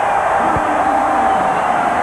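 A packed basketball arena crowd cheering in a steady, loud roar at a home win.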